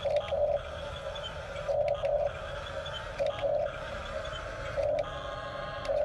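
Electric drive motors of a Huina 1569 RC toy bulldozer whining as it pushes through sand, surging louder in short spurts about every second and a half.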